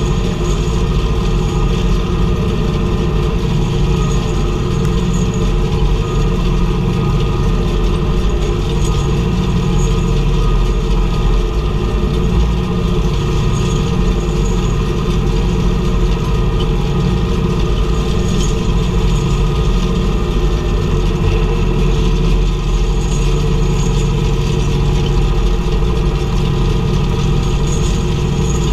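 International tractor engine running steadily while pulling a round baler through the field, with faint light ticks recurring every few seconds.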